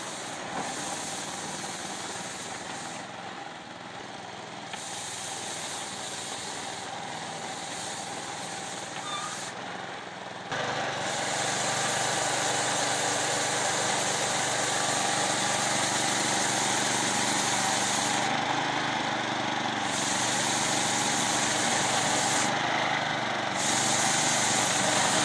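Small Honda petrol engine of a walk-behind snow sweeper running steadily as the machine clears snow. The sound steps up louder about ten seconds in.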